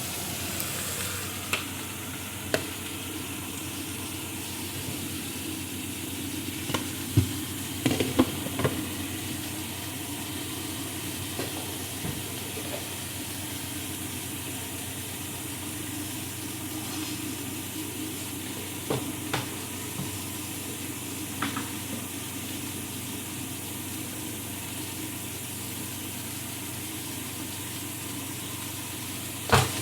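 Food sizzling steadily in hot oil in a frying pan, with a few sharp clacks of a utensil or pan now and then.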